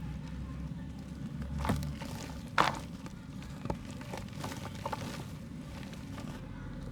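Soft dried mud crumbling: a few separate crunches and cracks, the loudest about two and a half seconds in, over a low steady hum.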